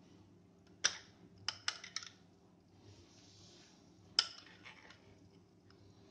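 Light clicks and clinks of a table knife and bread slices against a ceramic plate while buttered bread is handled: one sharp click just under a second in, three quick ones around two seconds, and another sharp click a little after four seconds, with a soft scrape between them.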